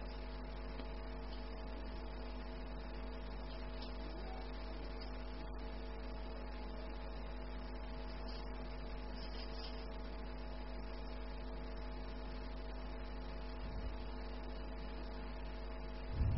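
Steady electrical mains hum with several constant tones over a low buzz. A brief low thump comes right at the end.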